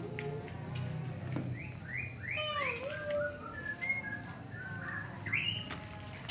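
Small bird chirping in quick runs of short rising and falling notes.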